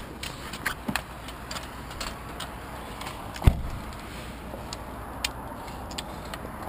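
Scattered light clicks and taps, with one heavy knock about halfway through, over a steady outdoor hiss: roller skis and ski poles being handled on wet asphalt.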